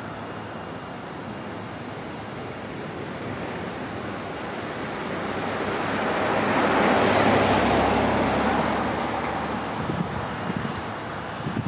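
An SUV driving past on the road, its tyre and engine noise growing as it approaches, loudest about seven seconds in, then fading away.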